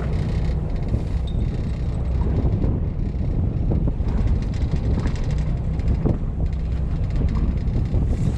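Steady low rumble of a fishing boat's engine running, with wind noise on the microphone.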